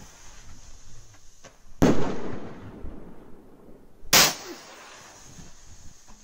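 Firework rockets from a Saturn pack of five: a sharp bang about two seconds in, then a second short blast a couple of seconds later, with faint crackling between.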